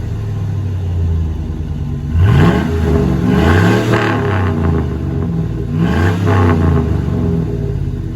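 A 5.3-litre V8 pickup running through a single-chamber performance muffler. The engine holds a steady low note, then twice climbs quickly in pitch and loudness, about two seconds in and again about six seconds in, each time falling back afterwards.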